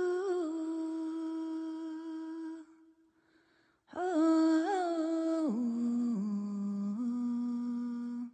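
Background music of a wordless voice humming long held notes in two phrases, with a brief pause between them. The second phrase slides down to a lower note.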